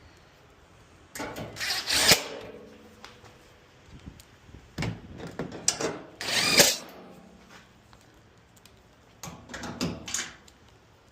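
Power drill driving screws into the dryer's sheet-metal panel in three short runs, its motor pitch rising as it spins up.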